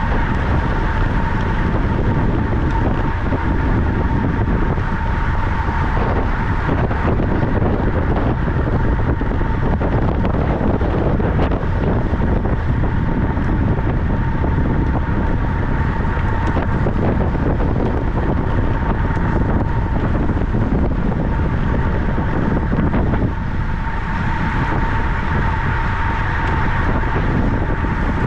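Wind rushing over the microphone of a camera carried on a bicycle ridden at racing speed, along with rolling noise from the bike and a steady high hum. The rush eases slightly near the end.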